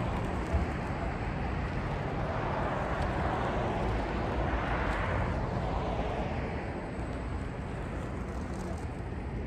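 Street ambience of road traffic: a steady hiss and low rumble from passing vehicles, swelling as one goes by about five seconds in. A short knock about half a second in.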